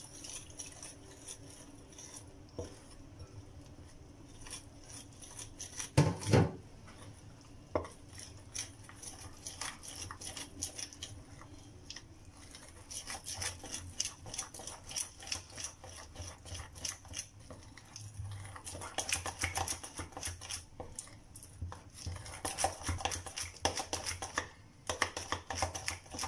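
Metal spoon stirring a wet flour-and-yeast mixture in a bowl, clicking and scraping against the bowl's sides in quick strokes that grow busier and louder in the second half. A single knock about six seconds in.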